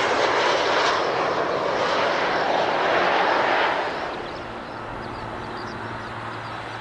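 Jet airliner engines roaring loudly, then dropping off about four seconds in to a quieter steady low hum.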